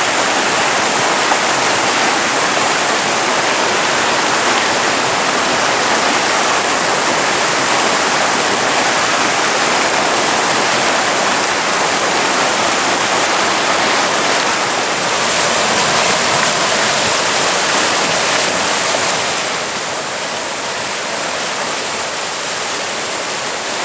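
Stream water rushing over rocks, a steady loud rush that drops a little in level near the end.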